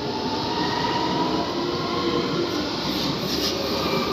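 Train rolling past along the station platform: a steady rumbling run with a faint, slowly rising whine. Short high-pitched wheel squeals and clicks start about three seconds in.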